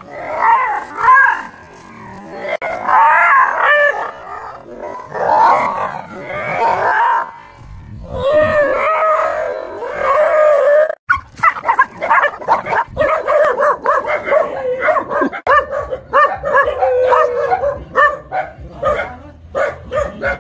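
Dogs yelping and barking in fright at a fake tiger toy. First come long, wavering cries; from about halfway there is a fast string of short yelps and barks.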